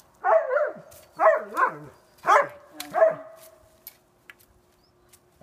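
German Shepherd dog barking, about five barks in quick succession over roughly three seconds, then stopping.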